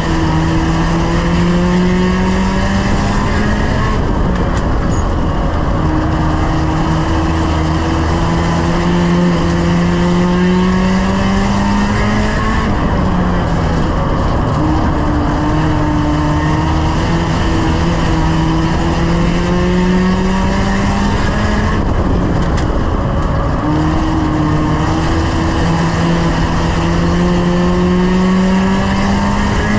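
Engine of a 1-litre stock car under racing load, heard from inside the stripped cabin. It climbs slowly in pitch for several seconds at a time, then dips briefly and picks up again, about three times.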